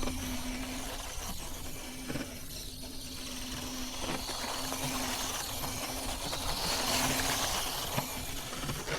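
Redcat Ascent-18 1/18-scale RC rock crawler driving, its small electric motor and drivetrain humming on and off with the throttle over a steady hiss.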